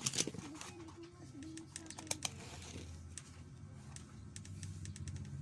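Light, irregular clicks and taps from handling a plugged-in charger and a voltage tester while checking for output voltage, over a faint low hum.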